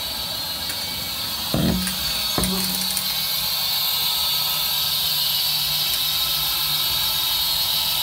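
Exploradome shutter motor starting with a clunk about a second and a half in, followed shortly by a click. It then runs with a steady low hum, winding one shutter cable onto its spool and paying out the other as it pulls the dome shutter open. A steady hiss runs underneath.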